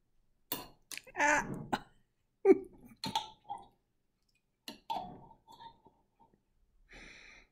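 A metal spoon knocking and clinking against a glass jelly jar, then scraping inside it near the end. Short throaty vocal sounds, like a cough or a burp, come about one and two and a half seconds in.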